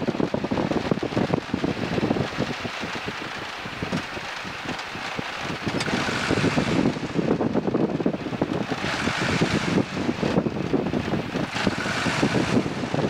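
Piper Cub taildragger touching down and rolling out on a grass strip: its engine running at low power under rushing wind noise, with the airframe and landing gear rattling over the rough turf. The rushing noise swells a few times.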